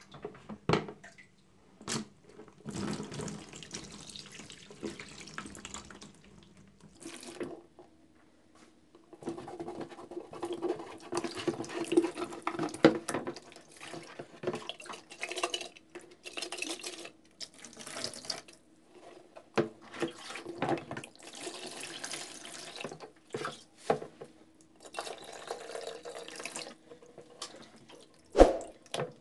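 Water poured from a plastic jug into a plastic washbasin and sloshed around a car's plastic coolant reservoir as it is rinsed, coming in spells of a few seconds with short pauses between. A few sharp knocks of plastic near the start and near the end.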